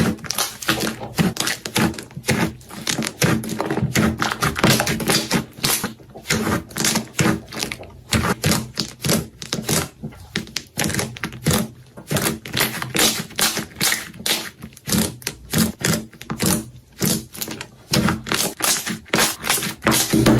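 Slime being squeezed and pressed by hand, crackling and popping in rapid, irregular clicks.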